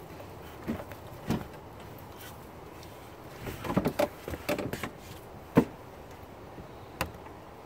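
Knocks, scuffs and clothing rustle as a person settles onto a white plastic patio lounge chair and shifts about, with a busy run of knocks in the middle and the loudest, a single sharp knock, about five and a half seconds in.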